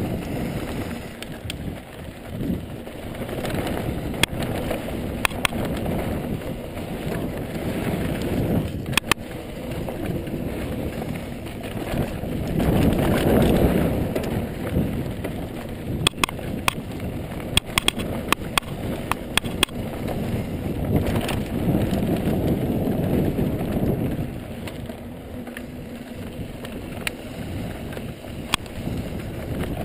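Ibis mountain bike descending a dry dirt trail: a continuous rumble of tyres and wind on the microphone that swells and fades, with sharp rattles and clicks from the bike jolting over bumps, most in a run about halfway through.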